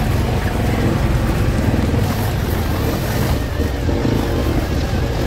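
Side-by-side UTV engine running steadily as it drives along a snowy trail, a constant low drone.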